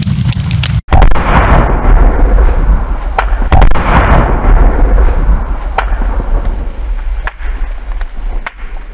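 Gunpowder explosion blowing apart a small wooden model house: a loud blast with a deep rumble that cuts off suddenly just under a second in, then another long, loud blast-like rush with a deep rumble and a handful of sharp pops, fading toward the end.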